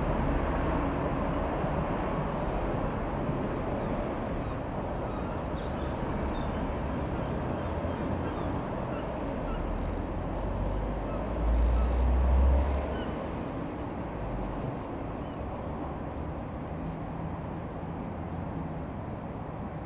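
Cessna F172N Skyhawk's single piston engine running steadily under outdoor noise, with a low rumble that swells for about a second just past halfway.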